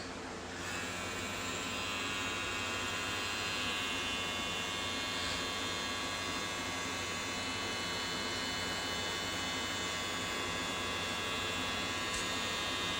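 Electric hair clippers buzzing steadily as a man cuts his own hair. The buzz comes in just under a second in and then holds steady.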